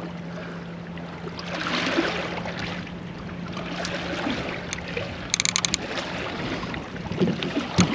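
Water lapping and sloshing against a small boat's hull, over a steady low hum, with a short run of rapid sharp clicks about five and a half seconds in.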